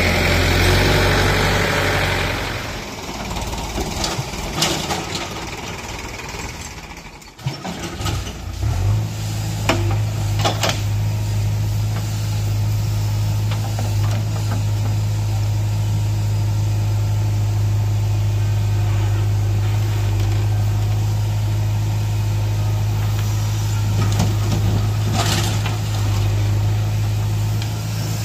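Heavy diesel engines at work: a tractor's engine running loudly for the first couple of seconds. After a break about seven seconds in, a diesel engine runs steadily with a deep even hum while a JCB 3DX backhoe loader digs soil and loads it into a trolley, with a few sharp knocks.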